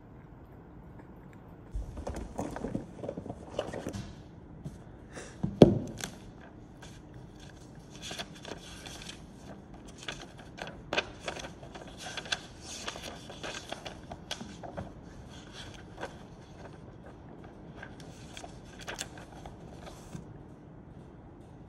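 Irregular handling noises: rustling, scraping and clicking of objects being moved, with one loud thump about five and a half seconds in.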